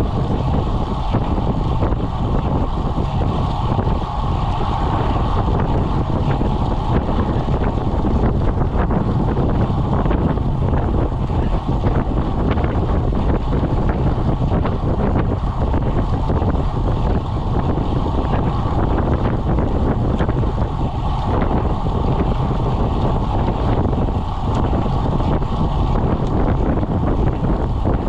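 Steady wind rushing over the microphone of a camera on a road bike riding at about 20 mph, with road noise beneath.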